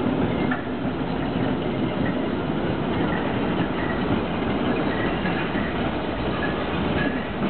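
Street tram rolling past on its rails and drawing away, a steady rumble of wheels on the track, with a few faint short high squeaks in the middle.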